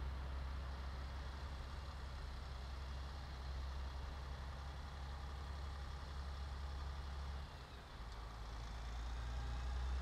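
Volvo heavy-haul truck's diesel engine running at low revs under a heavy load, a steady low drone that dips briefly about three-quarters of the way through.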